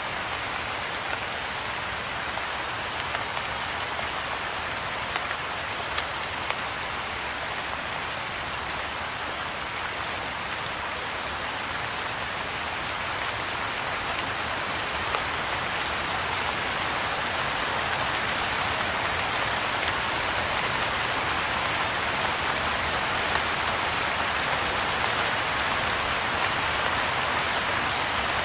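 Soft, steady rain falling on a pond's surface and the grass and shrubs around it, an even hiss with a few sharper drop ticks. The rain grows a little louder over the second half.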